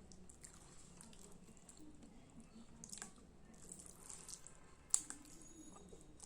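Faint wet chewing and squishing of food being eaten, with a few sharp clicks, the loudest about five seconds in.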